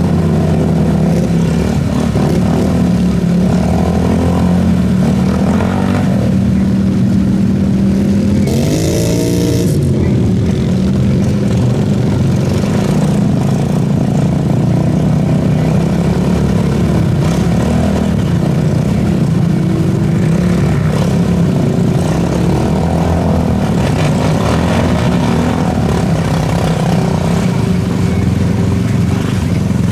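Off-road vehicle engines running steadily, with one revving up and back down alongside a brief hiss about nine seconds in.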